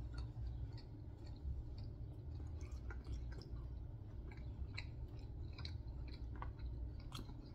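A person chewing a mouthful of pasta close up, with many small scattered mouth clicks over a low steady hum.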